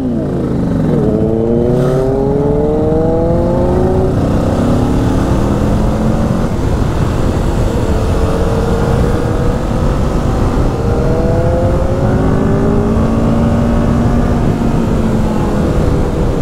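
Kawasaki Ninja 650 parallel-twin engine under way, accelerating through the gears: the pitch climbs, drops at a shift and climbs again, then settles to a steady cruise, over constant wind and road noise.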